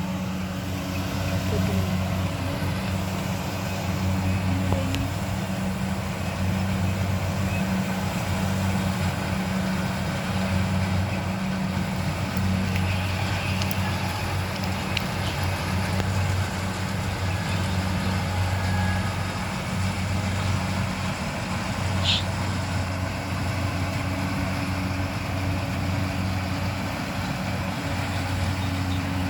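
Rice combine harvester's engine running steadily, a constant low hum.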